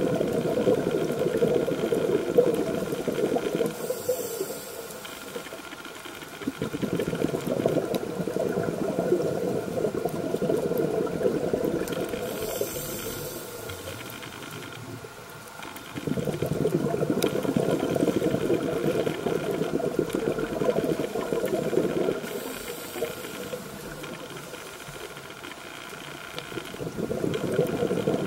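Scuba diver breathing through a regulator underwater, three breaths in all: a short high hiss of inhalation about four, twelve and twenty-two seconds in, each followed by several seconds of bubbling exhalation.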